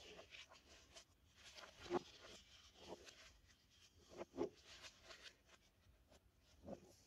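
Paper pages of a large bound album being turned by hand: faint rustling swishes, each with a soft tap or two as the page lands.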